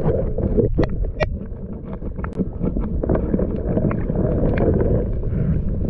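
Muffled underwater sound picked up by a submerged camera: a steady low rumble of moving water with many scattered sharp clicks and crackles, as a hand probes a hole in the reef.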